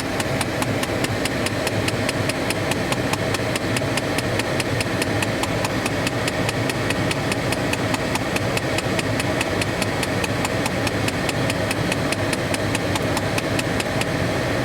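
Broken HVAC air blend door actuator under the driver's side of a 2012 Dodge Charger SRT8's dash, clicking rapidly and evenly, several clicks a second. Underneath runs the steady hum of the running car. The clicking is the sign of the failed actuator.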